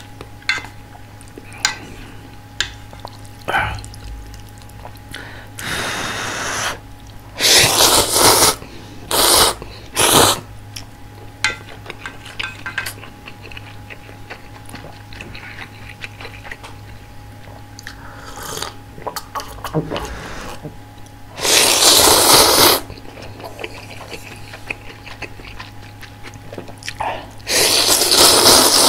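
Close-miked slurping of soft-tofu ramen noodles in several loud bursts, the longest about a second, with quieter chewing and small wet mouth clicks in between.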